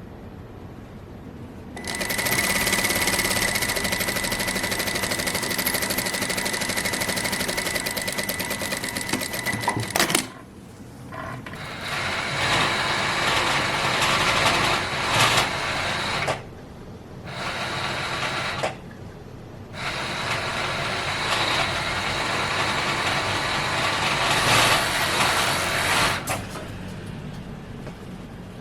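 Sewing machine stitching in four runs of several seconds each, stopping briefly between them. The first run is the longest, about eight seconds.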